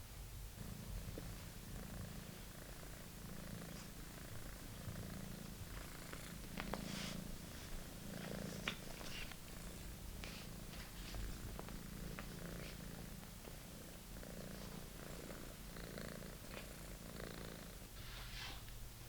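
British Shorthair kitten purring steadily, the purr swelling and easing about once a second with each breath, then stopping near the end. Faint light clicks and rustles sound over it.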